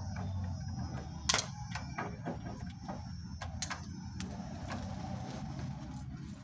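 Irregular small clicks and taps of a metal drawer lock being handled and adjusted by hand, its bolt being repositioned, over a steady low hum.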